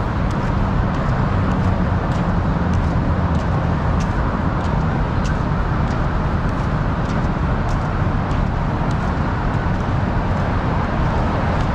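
Steady noise of road traffic, a continuous even rumble.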